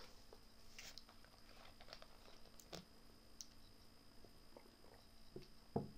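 Near silence: room tone with a few faint, scattered clicks and ticks, a little louder near the end.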